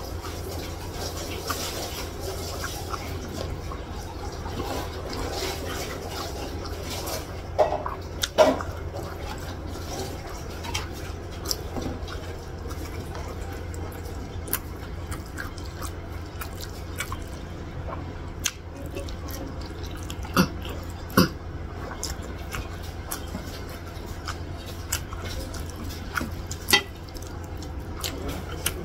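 Close-up eating sounds of rice and vegetable curry eaten by hand: wet chewing and mouth noises, with a few sharp clicks over a steady low hum.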